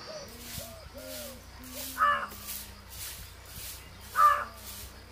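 A crow cawing twice, two brief calls about two seconds apart.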